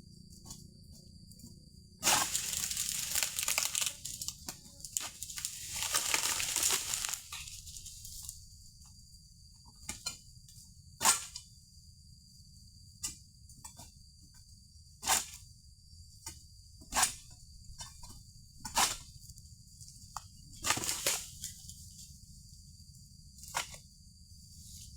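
Oil palm fronds rustling and tearing for several seconds as they are cut with a long-poled sickle (egrek) and pulled down, followed by a series of single sharp cracks about two seconds apart. A faint steady high whine sounds throughout.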